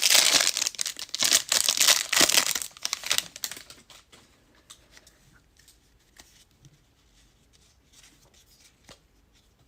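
Foil trading-card pack wrapper being torn open and crinkled for about three and a half seconds, then faint handling ticks of cards being sorted.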